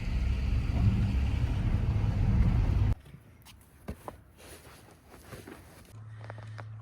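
A loud, low, steady rumble like a running vehicle for about three seconds, cutting off abruptly. Then quieter scattered clicks and knocks, and a low steady hum starting near the end.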